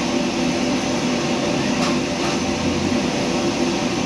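Steady drone of a commercial kitchen's extraction hood fan over a wok range, with a faint click about two seconds in.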